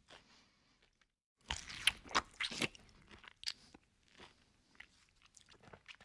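Close-up mouth sounds of a person chewing a mouthful of fried fish and rice: a run of loud crisp crunches a second and a half in, then quieter wet chewing and smacking.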